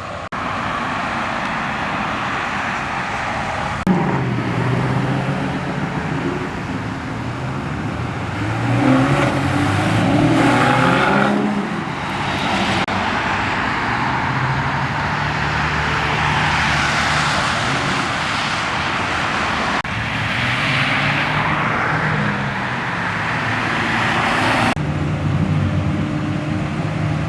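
Car engines and exhausts as cars pull away one after another, revving and accelerating, with the pitch rising and falling. The sound changes abruptly about four seconds in and again near the end.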